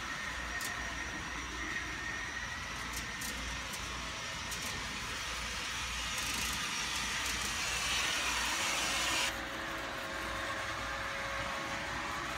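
Garden-scale model train running on its outdoor track over a steady hiss and low hum. A brighter, louder hiss builds about halfway through and cuts off suddenly about three-quarters of the way in.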